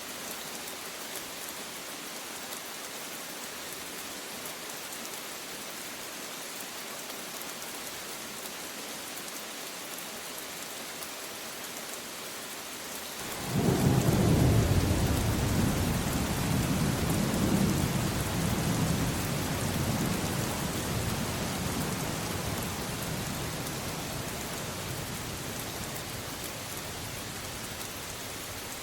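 Steady rain falling, then about halfway through a clap of thunder breaks in suddenly and rumbles deeply. The rumble swells a second time a few seconds later and slowly dies away under the rain.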